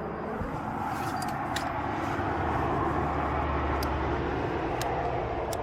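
A motor vehicle driving past, its engine hum and road noise swelling to a peak about halfway through and then easing off, with a few light clicks over it.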